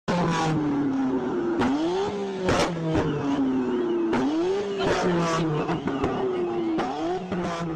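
Car engine revving repeatedly: its pitch sinks and then sweeps sharply back up about three times, with sharp knocks scattered through.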